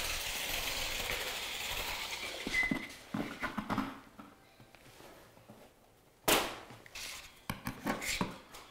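Chalk line work on drywall: a steady hiss for the first couple of seconds, a few light knocks, then one sharp snap of the line against the wall about six seconds in, followed by light taps.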